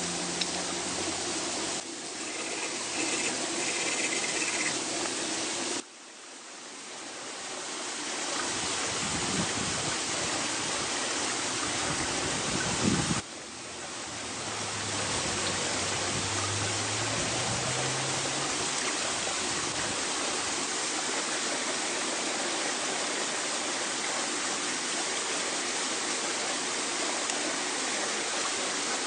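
Steady rushing of a forest stream. It drops away suddenly about six seconds in and swells back over the next few seconds, then dips again briefly around thirteen seconds.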